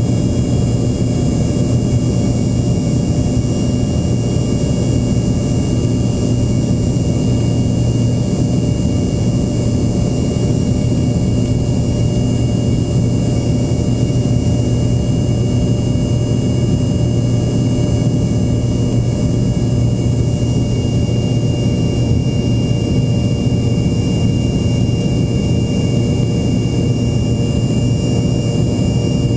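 Embraer ERJ-145's rear-mounted Rolls-Royce AE 3007 turbofans heard from inside the cabin: a steady deep drone with a thin high whine held at a constant pitch.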